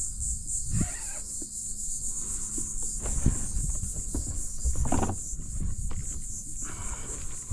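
Steady high-pitched insect buzzing, with a few irregular low rumbles and knocks over it.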